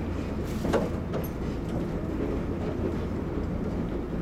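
Fujikyu limited express train running on the line: a steady low rumble of motors and wheels on the track, with two sharp knocks under a second in.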